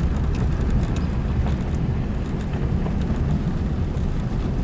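Steady low rumble of a car's engine and tyres on a gravel road, heard from inside the cabin.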